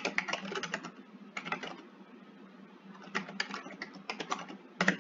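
Typing on a computer keyboard: quick runs of keystrokes, with a pause of about a second in the middle.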